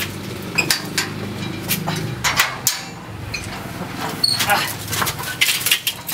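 Steel grille gate rattling and clanking as it is shoved open and pulled shut, with a scatter of sharp metallic knocks and scuffling feet.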